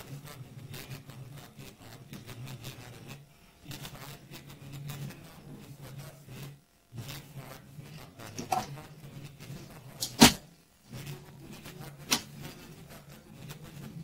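Light handling of wires and plastic connectors on a workbench over a low steady hum, with a sharp click about ten seconds in.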